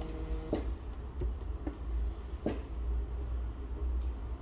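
A few light clicks and taps from small repair tools and phone parts being handled, over a steady low hum.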